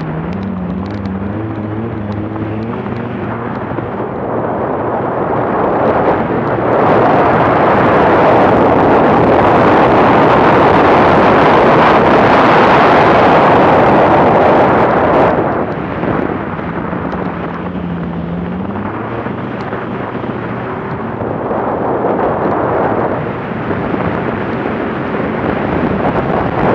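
BMW car being driven hard on snow, heard from a camera on its hood: the engine runs and changes pitch under throttle while wind and snow noise rush over the microphone. The rushing is loudest from about six to fifteen seconds in, then eases, and the engine note comes through again before the noise builds once more near the end.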